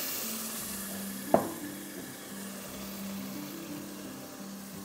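Water just added to lentils, rice and onions toasted in hot olive oil, sizzling in the pot, the hiss slowly fading, while a spatula stirs the mixture. A single sharp knock about a second and a half in; soft background music underneath.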